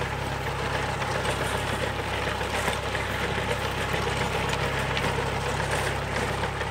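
Old tractor engine running steadily while towing a restored 19th-century reaper, with the reaper's gears and cutter bar clattering over the engine.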